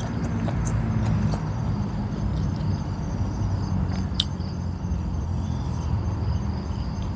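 Close-up chewing and crunching of a man eating with his hands, with a sharp click about four seconds in, over a steady low rumble. Crickets chirp high in the background.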